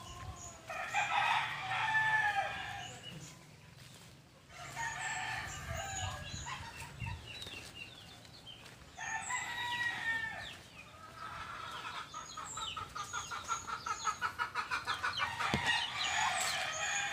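Chickens: roosters crowing, three long crows a few seconds apart, with clucking, then a fast run of short repeated calls over the last few seconds.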